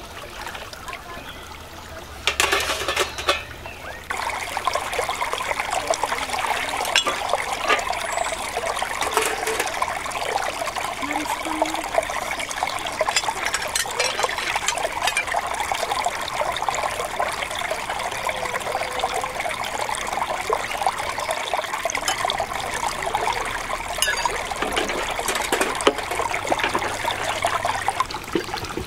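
Shallow stream babbling and trickling over rocks, a dense steady rush of water. It is quieter at first, with a brief louder burst about two seconds in, then grows louder about four seconds in and holds steady.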